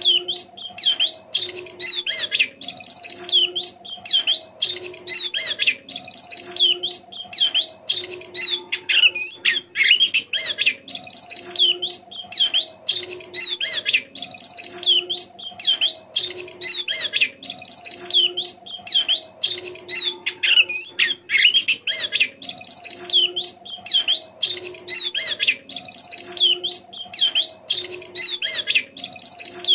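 White-eyes (pleci) twittering softly and without pause in fast, high chirps and trills. A fainter low pattern of short repeating tones runs underneath.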